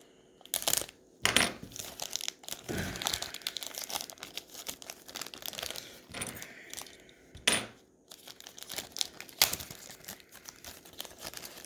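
A pack of trading cards being opened and handled: the wrapper crinkling and tearing, with several sharp snaps and clicks as the cards are pulled out and handled.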